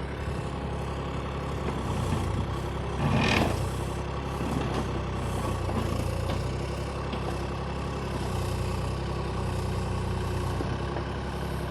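Excavator's diesel engine running steadily, with a brief louder noisy burst about three seconds in.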